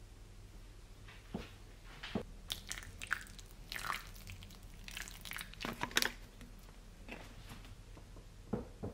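Hands working potting soil and a plant while repotting: scattered soft crunches, rustles and light taps, busiest in the middle, with a couple of clicks near the end.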